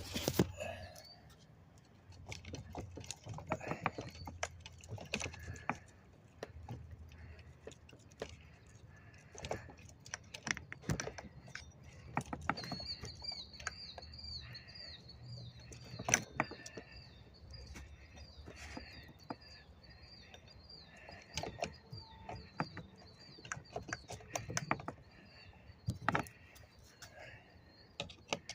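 Scattered metallic clicks and clinks of a chainsaw's chain and bar being handled as the chain is worked back into the bar groove. From about twelve seconds in, a bird chirps in a fast repeating series.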